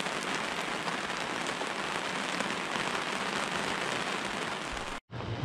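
Steady rain falling on the sea and on the sailboat's canvas bimini overhead, an even hiss that cuts off suddenly near the end.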